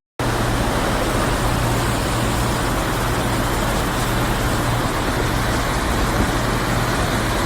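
A steady engine drone: a low hum under an even wash of noise, unchanging throughout, as from a vehicle under way.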